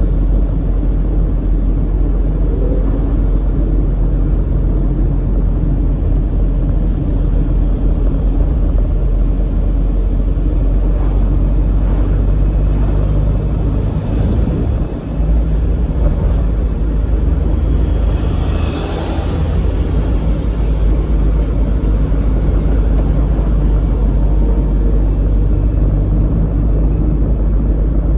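Steady, loud rumble of a car driving along a busy urban expressway: road and engine noise. A brief hissing swell about two-thirds of the way through, like a vehicle passing close by.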